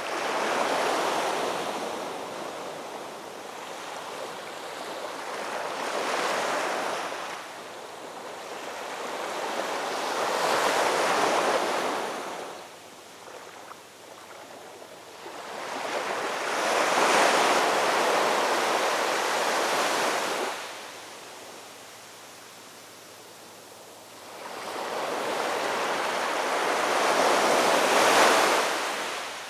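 Ocean waves breaking and washing up on the shore, five surges that swell and fall away every five or six seconds with quieter lulls between.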